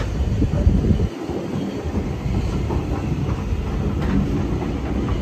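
Heritage railway train running along the track, heard from aboard a carriage: a steady low rumble with wheel clatter.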